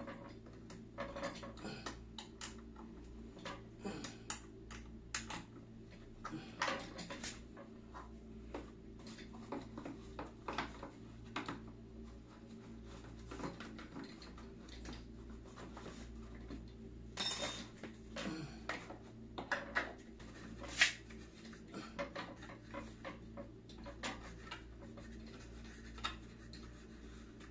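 Small clicks, knocks and rattles of plastic and metal office-chair parts being handled and fitted together by hand, one sharper click standing out about three-quarters through, over a steady low hum.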